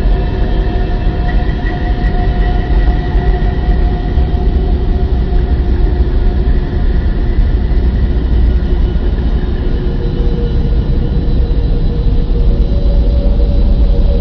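Sonified space-probe recording of a planet's electromagnetic waves, turned into audio: a deep, steady rumble with several held tones drifting over it, the tones shifting to new pitches about two-thirds of the way through.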